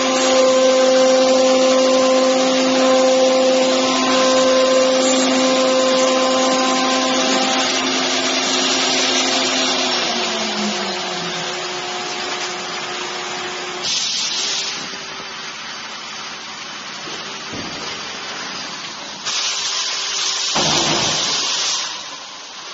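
CNC router spindle running with a steady whine while it cuts into a fibreboard sheet, then spinning down with a falling pitch about ten seconds in. Later comes a short burst of hiss, then a longer one lasting a few seconds.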